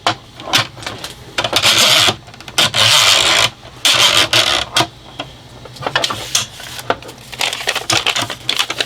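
Plastic toy pieces being handled: quick clicks and clatters with several rustling stretches of about a second each.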